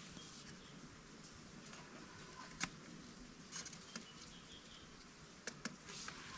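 Faint handling sounds of a thin bamboo strip being worked by hand: a few short sharp clicks and taps, the loudest a little before the middle and two close together later, over quiet forest background.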